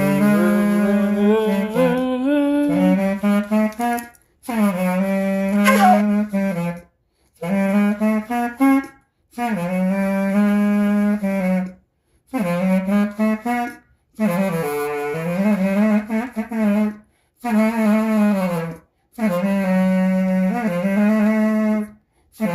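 Solo saxophone playing about eight short phrases of mostly held low notes, each separated by a brief pause for breath.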